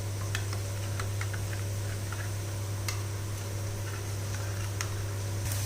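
Onions frying in hot oil with scattered small crackles and pops, over a steady low hum.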